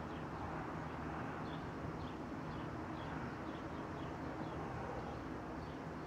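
Faint short high chirps of birds, repeated irregularly, over a steady low background hum.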